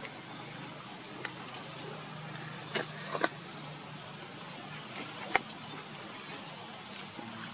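Steady high-pitched buzz of insects with faint, repeating upward sweeps, over a low steady hum. A few sharp clicks cut through, the loudest a little past halfway.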